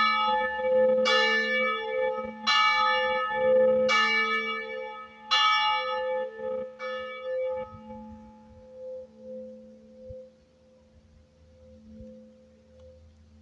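Church tower bell struck about every second and a half, each stroke ringing on. The strokes stop around seven seconds in, and the ringing dies away to a low steady hum that fades out.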